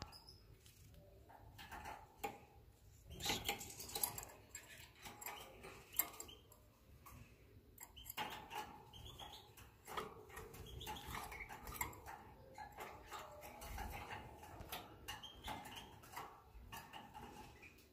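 Faint squeaks and chirps from a small cage bird held in the hand by its feet, with scattered soft ticks and clicks of handling.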